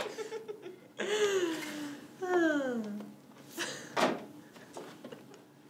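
A man and a woman laughing together, in bursts whose pitch slides downward, with a single sharp knock about four seconds in.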